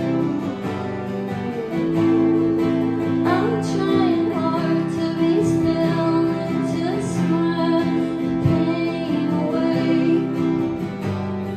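Acoustic guitar strummed in a steady song accompaniment while a woman sings, a live acoustic performance.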